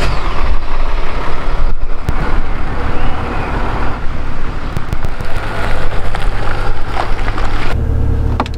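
Mercedes-Benz GLE 350d six-cylinder diesel SUV running: a steady low rumble with noise over it and a few light clicks, the rumble growing louder near the end.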